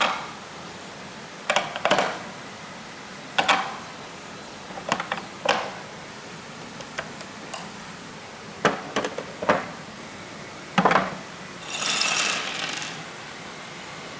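Marbles clicking and clacking as they run down a nagashi somen water-slide course, sharp knocks coming singly and in quick clusters every second or two, with a longer rattle near the end, over steady flowing water.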